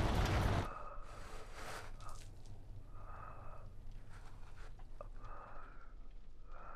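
A loud, dense noise cuts off abruptly within the first second. Then a man breathes slowly and heavily, with about four drawn-out, wheezy breaths a couple of seconds apart and faint rustles between them.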